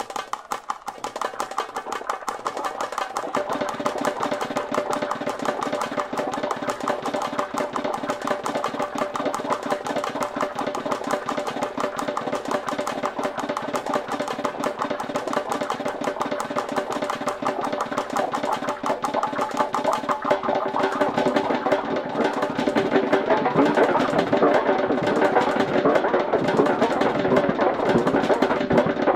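Electronic music: a rapidly pulsing, buzzing synth drone on steady pitched tones, with a low layer coming in about three seconds in and the whole growing louder in the last third.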